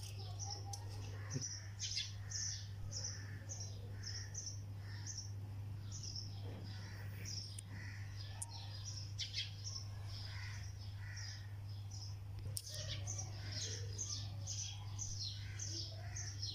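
A bird chirping over and over, short high chirps about two to three a second, over a steady low electrical hum. A few sharp clicks come through.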